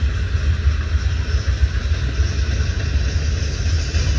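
Freight train of loaded centerbeam flatcars rolling past, a steady low rumble.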